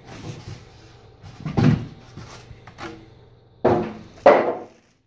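Handling noises from unpacking a computer case: packaging and the plastic foil around the case being moved, in three louder rustling, knocking bursts, the last two close together near the end.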